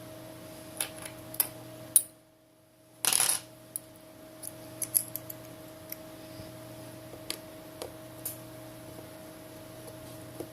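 Small clicks and taps of a precision screwdriver and tools working on a smartphone's tiny screws, with a short metallic clatter about three seconds in, just after a second-long silent gap.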